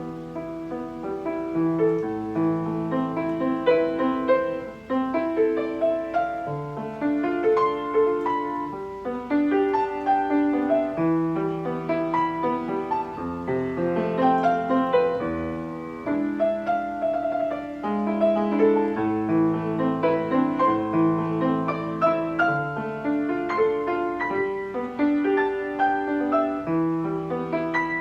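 Steinway piano playing a continuous piece, with a steady bass line under chords and a melody that keep changing throughout.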